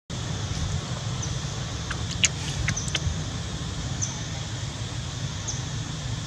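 Outdoor ambience: a steady low rumble with a few short, high bird chirps scattered through it, and a sharp click among a few smaller clicks about two seconds in.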